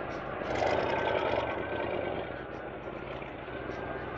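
Car engine running at idle, a steady low drone, with a louder rush of noise swelling about half a second in and easing off by two seconds.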